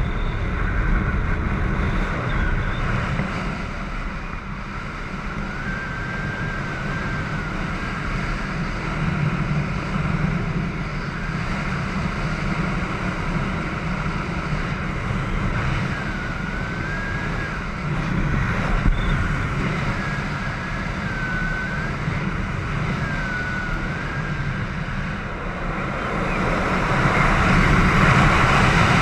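Airflow buffeting the camera's microphone during a parachute descent under an open canopy: a steady low wind rumble that grows louder near the end.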